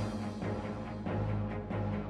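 Background music with sustained low notes and a steady beat.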